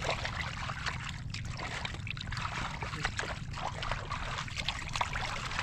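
Water splashing and sloshing in a shallow muddy pool as hands grope through it for fish, a run of quick, irregular splashes.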